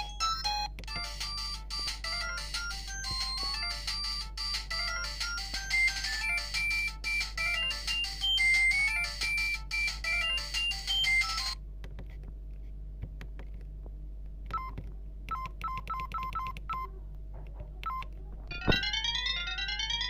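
ZTE G S315 mobile phone playing its built-in ringtones in turn. A busy electronic melody cuts off abruptly about halfway through, sparse short beeps follow, and then, after a click near the end, a new tune of quick rising note runs starts. A steady low hum lies underneath.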